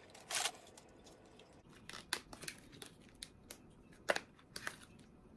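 Plastic packaging of a marker set being handled and opened: scattered crinkles and sharp clicks, with a louder crackle about half a second in and another about four seconds in.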